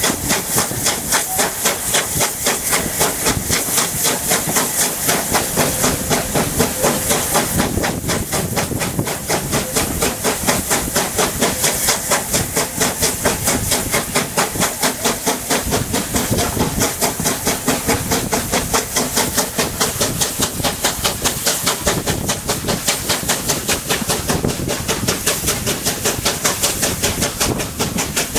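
Steam locomotive working steadily with rapid, regular exhaust beats, about four a second, over a constant hiss of steam and wind, heard from an open carriage window just behind the tender.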